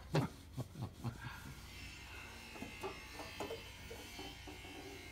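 A small electric motor buzzing steadily, starting about two seconds in.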